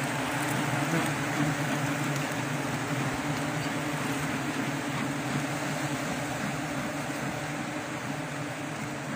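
A swarm of wild honeybees buzzing in flight, a dense, steady hum that eases slightly near the end.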